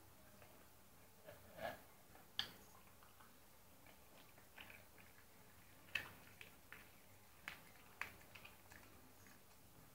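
Dog chewing and licking at scraps of chicken: faint, irregular wet clicks and smacks, with a few sharper ones about two and a half, six and eight seconds in.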